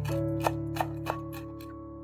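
Chef's knife chopping parsley on a wooden cutting board: a string of quick, light strokes that thin out and stop shortly before the end, over background music with held notes.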